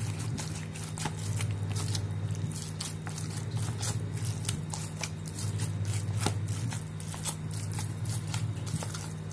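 Hand squeezing and mashing silken tofu in a metal bowl: a run of short wet squishes and clicks, several a second, over a steady low hum.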